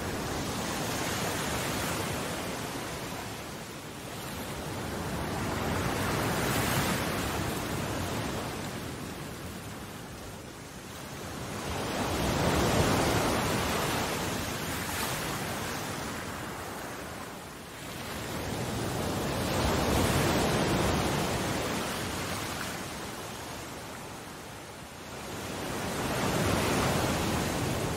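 Ocean waves washing onto a shore: a steady hiss that swells and ebbs about every six to seven seconds.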